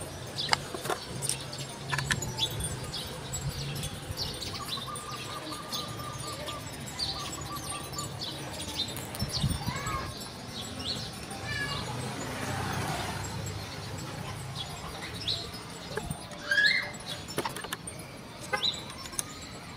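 Light clicks and taps from a tool and hands handling the circuit board and disc mechanism of a dismantled CD player, with a few louder knocks near the end. Birds chirp in the background throughout.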